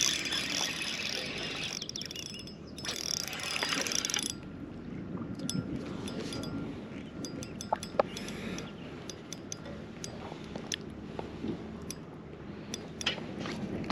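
Fishing reel being worked, with ratcheting, clicking mechanical sounds and handling noise, then scattered sharp clicks.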